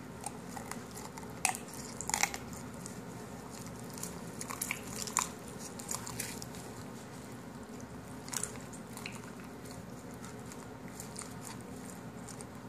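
Kitchen shears cutting through a raw chicken's backbone and ribs: irregular crunching snips of bone and cartilage, over a faint steady low hum.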